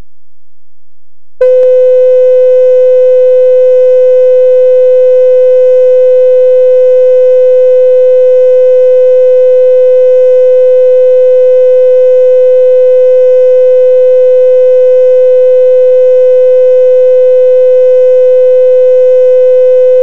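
Loud, steady reference tone from the bars-and-tone leader of a broadcast videotape: one unwavering mid-range pitch with faint overtones, switching on abruptly about a second and a half in.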